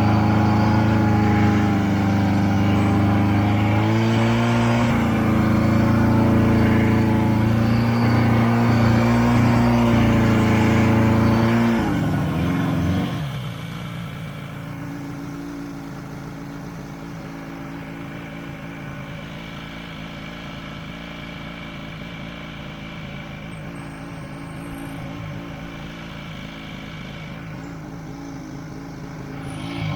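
Buran snowmobile's two-stroke engine running loudly at a steady speed, its pitch shifting slightly; about twelve seconds in it drops to a much quieter, lower run, and rises again in pitch right at the end.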